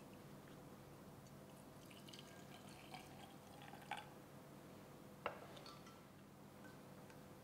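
Liquid poured into a glass carafe, a faint trickle and fill with two light clicks, the sharper one about five seconds in.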